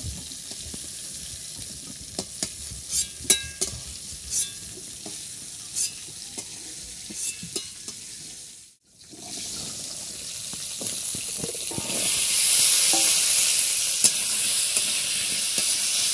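A metal spatula clinks and scrapes against a metal wok and a steel bowl as fried pieces are lifted out, over a low sizzle of oil. After a short break, cubed potatoes fry in hot oil in the wok while being stirred, and the sizzle grows much louder in the second half.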